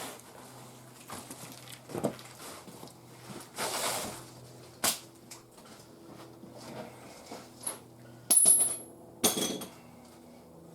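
Irregular metal clinks and knocks, with a louder clatter near the end, over a faint steady hum.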